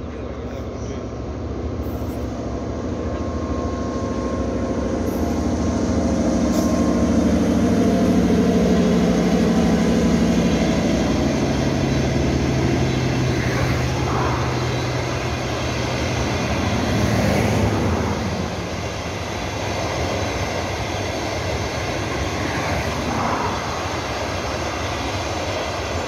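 Diesel-hauled passenger train passing close by: the locomotive's engine hum swells and drops in pitch as it goes by, loudest about eight to ten seconds in, then the steady rolling noise of the coaches going past.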